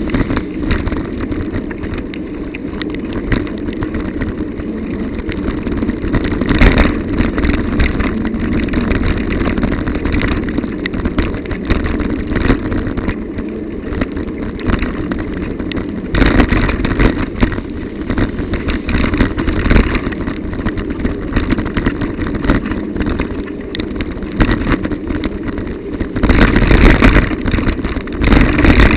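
Bicycle-mounted recorder riding over a broken, wet road surface: a steady rumble of tyres and air with constant rattling knocks from bumps and potholes, growing louder in spells about a quarter of the way in, near the middle and near the end.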